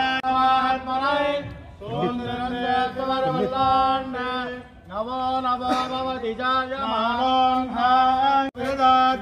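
Male priests chanting a Tamil devotional hymn in unison, the voices held on a steady pitch in phrases of a few seconds with short breaks between.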